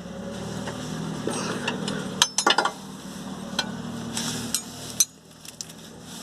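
Metal hand tools, a wrench and socket, clinking and scraping against a bolt as it is levered, with a quick cluster of sharp metallic clinks about two and a half seconds in and a single knock about five seconds in. A steady low hum runs underneath until about five seconds in.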